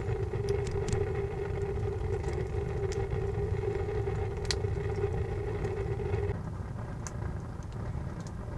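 Kindling fire crackling inside a wood stove, with sharp scattered pops, over a steady low hum that stops about six seconds in.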